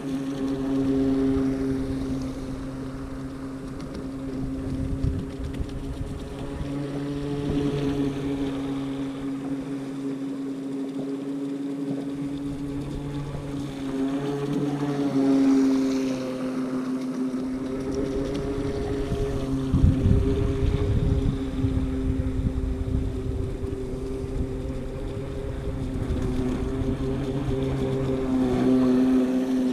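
A small motor's steady pitched hum, shifting slightly in pitch a couple of times, with wind gusting on the microphone about a third of the way in and again around two-thirds through.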